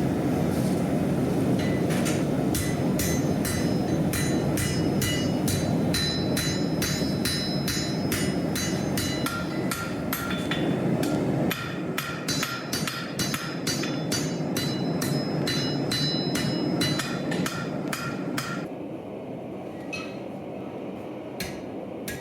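Blacksmith's hammer forging steel on an anvil, ringing blows at about three a second over a steady rushing noise. The hammering stops near the end, leaving a couple of single blows.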